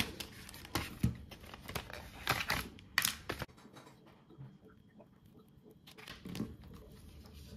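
Plastic packaging wrap crinkling and crackling as a newly unwrapped keyboard is handled, with several sharp crackles in the first three seconds. After that come quieter handling sounds.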